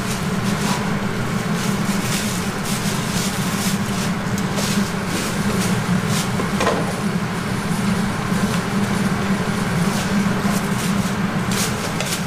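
Batter-coated chicken deep-frying in a large wok of hot oil: a steady sizzle with constant crackling, over a low steady rumble.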